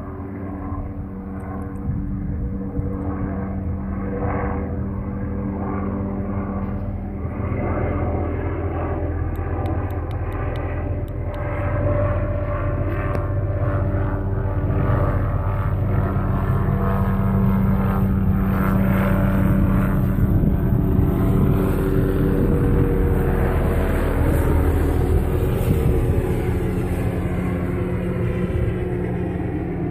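Airplane cabin noise heard from inside the passenger cabin: the steady drone of the aircraft's engines and rushing air, with a few held low tones, growing a little louder over the first dozen seconds.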